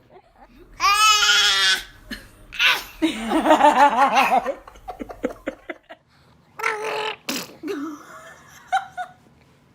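People laughing in bursts: a high, wavering giggle about a second in, then a longer, lower laugh, with shorter bursts near the end.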